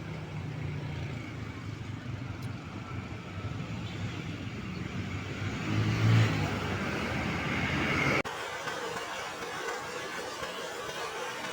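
A bus's diesel engine rumbling as it passes close, loudest about six seconds in. The sound cuts off abruptly just past eight seconds and is replaced by a quieter, thinner street hum.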